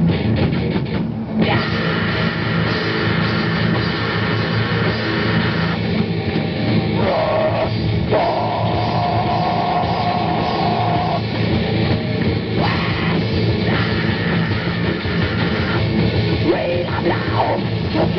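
Heavy metal band playing an instrumental passage: distorted electric guitars over a pounding drum kit, with a held guitar note from about eight to eleven seconds in.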